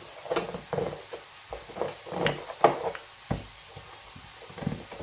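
Wooden rolling pin pressed and rolled over pastry laid on small tartlet molds, cutting the dough against the mold rims, with irregular knocks and thumps, the loudest a little under three seconds in.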